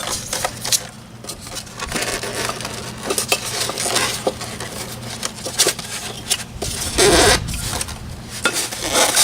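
Handling noise from styrofoam packing rubbing and crunching as the decoy's pole sections are worked out of it, with scattered clicks and a louder stretch of noise about seven seconds in. A faint steady low hum lies underneath.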